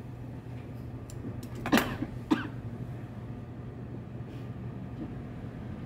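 Two coughs about half a second apart, a little under two seconds in, over a steady low hum, with a few light clicks and fabric rustling.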